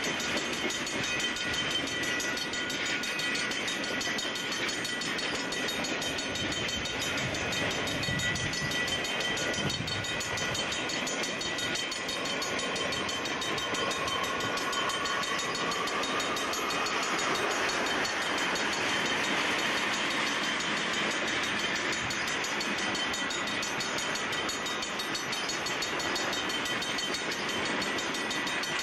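Freight cars of a passing mixed freight train (boxcars, a gondola, tank cars) rolling by close on their steel wheels: a steady rumble and rattle of wheels on rails. Thin high tones ring over it, one of them rising in pitch about halfway through.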